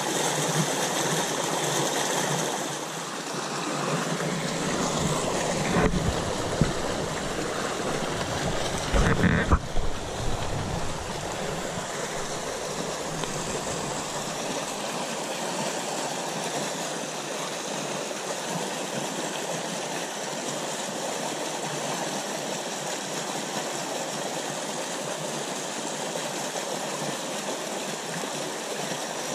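A small rocky stream rushing through a narrow rock channel, making a steady water noise. A few low thumps come about six and nine seconds in.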